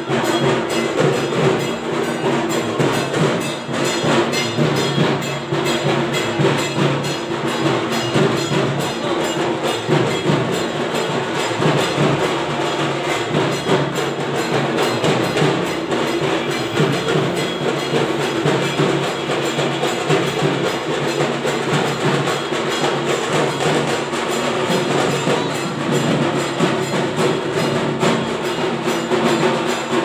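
Loud music with fast, steady percussion: rapid, even strikes over a sustained low drone, with no break.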